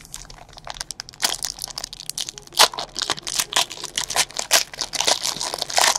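Foil wrapper of a Panini XR football card pack being torn open and crumpled by hand: a dense run of sharp crinkling crackles.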